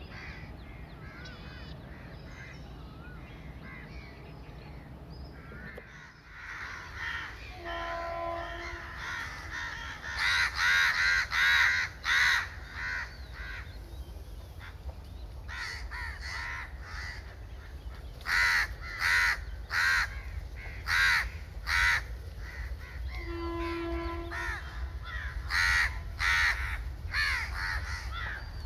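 Crows cawing over and over, loud and repeated from about ten seconds in. Twice, about fifteen seconds apart, a train horn sounds a short steady note.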